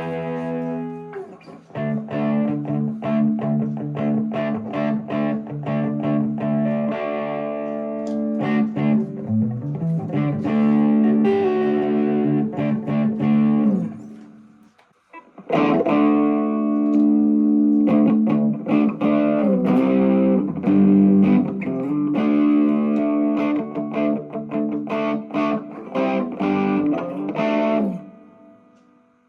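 Epiphone SG Special electric guitar played through a Vox MV50AC amp and a 10-inch speaker cabinet: two phrases of picked notes and chords with a few bent notes. The first phrase rings out and stops about halfway through, and the second starts a second later and dies away near the end.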